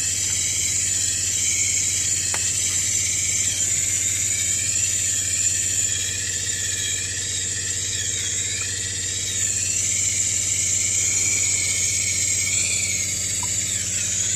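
Steady hum of the water pump under a high, wavering hiss and squeal of plumbing antifreeze seeping into the hot water tank: the bypass valves are not keeping the antifreeze out of the tank.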